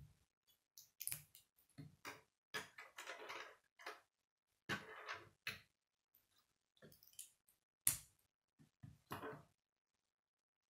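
Plastic K'nex pieces clattering as they are picked from a loose pile, and clacking as they are set down one at a time on a wooden tabletop. It comes in short irregular rattles and clicks, the sharpest click about eight seconds in.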